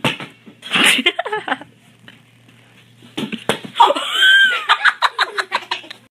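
A girl clapping her hands and laughing, in two bursts of sharp claps and laughter: a short one about a second in and a longer one from about three seconds in.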